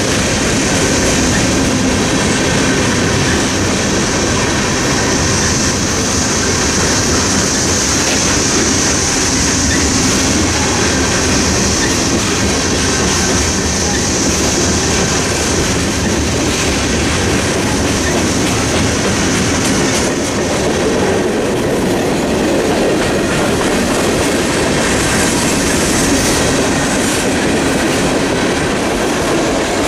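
Freight train cars rolling past a level crossing: steady rumble and clatter of steel wheels on the rails, with a high-pitched wheel squeal that fades about two-thirds of the way through.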